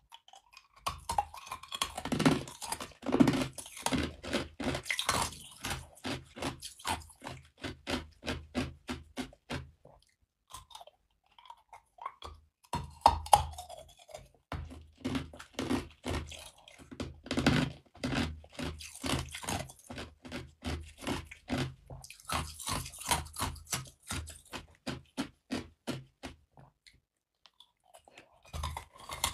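Hard, clear ice cubes being bitten and chewed: a quick, even run of sharp crunches that breaks off twice, about a third of the way in and near the end.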